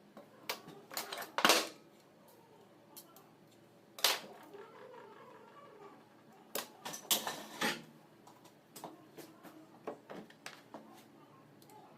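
Irregular clicks and clatter of small metal parts and tools being handled, in short bursts. The loudest clusters come about one and a half seconds in, at four seconds, and around seven seconds.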